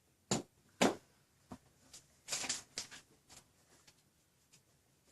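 Hands handling a Glock 27 pistol: a string of short, irregular clicks and rustles, about ten in five seconds, the loudest two in the first second.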